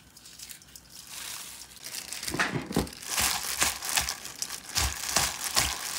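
Packaging being handled and crinkled, quiet at first and then rustling irregularly from about two seconds in, with a few soft thumps.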